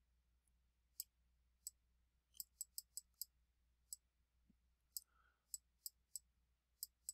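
Stylus tapping and clicking against a tablet screen during handwriting: about a dozen faint, sharp clicks at irregular intervals, bunched together in places.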